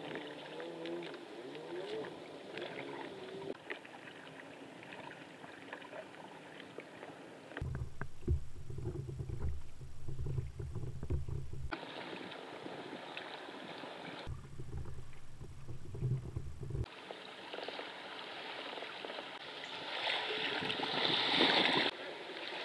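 Water sounds from a kayak on open river water, with water splashing and lapping around the hull and paddles. It is interrupted by two stretches of low rumble, and the hiss of the water grows louder near the end.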